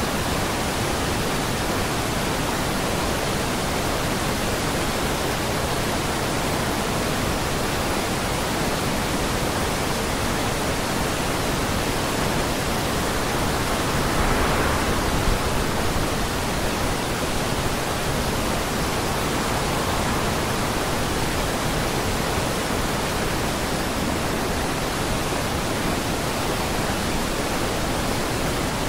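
Waterfall in flood after days of heavy storm rain, roaring: a steady, dense rush of white water that swells a little about halfway through.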